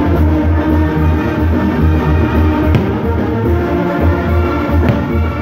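Loud music with a deep, steady bass and held tones. Two sharp cracks cut through it, under a third of the way in and near the end, fitting firework bursts.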